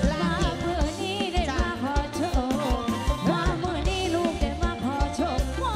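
Live band music: a wavering melodic lead over a steady drum and bass beat.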